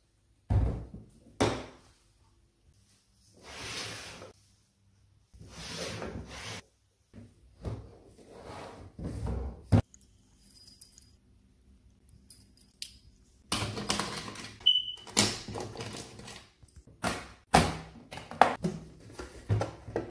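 Aluminium makeup train case being handled: a thunk as it is set down on a wooden table, then a run of metal clicks, knocks and scrapes as its latches are opened and its lid and hinged trays are swung out, busiest in the last several seconds.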